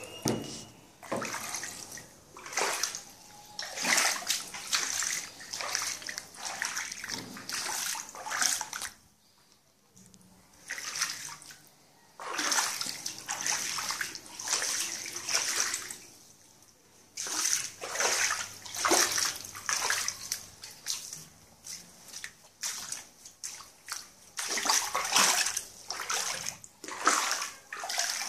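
Bare feet wading through shallow floodwater on a tiled floor: a run of irregular sloshing, splashing steps with a couple of short pauses.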